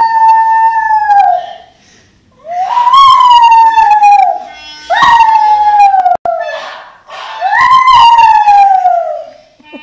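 Jack Russell terrier howling, four long howls, each rising briefly and then sliding down in pitch.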